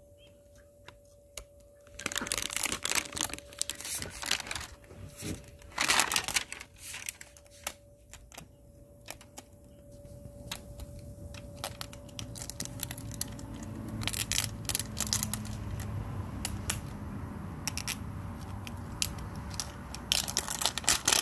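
Paper-and-plastic wrapping on an LOL Surprise! Under Wraps doll capsule being torn and peeled off by hand, in bursts of tearing and crinkling. A low steady rumble comes in about halfway.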